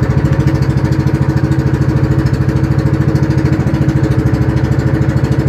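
A boat's engine running steadily, with a fast, even pulse.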